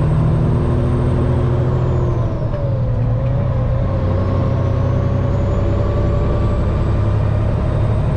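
Peterbilt semi truck's diesel engine heard from inside the cab, pulling steadily at low revs under load. It is in the wrong gear and gaining little speed, lugging rather than accelerating.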